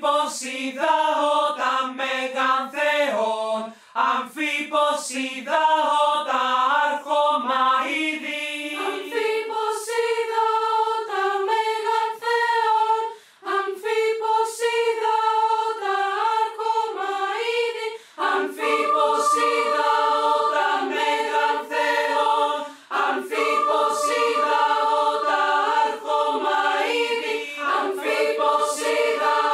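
Choral music: several voices singing together, with brief breaks every few seconds.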